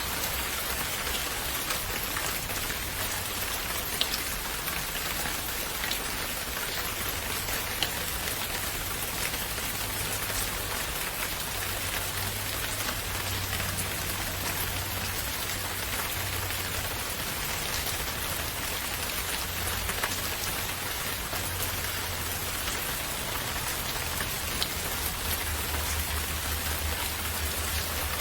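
Steady rain falling: an even hiss of many drops, with a few single louder drop ticks standing out.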